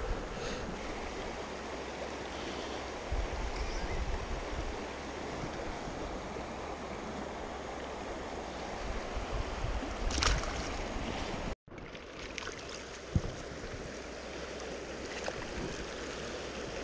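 Shallow river running steadily over a rocky bed, with wind buffeting the microphone now and then and a short sharp handling sound about ten seconds in. The sound cuts out completely for an instant about two-thirds of the way through.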